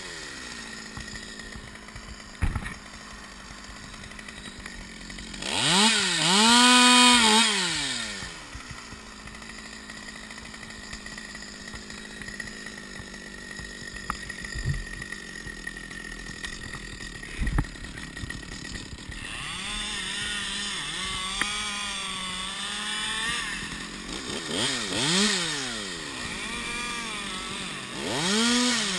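Small top-handle chainsaw idling. It is revved up and back down once about six seconds in, and again several times near the end as the bar goes back to the wood. A few sharp knocks come in between.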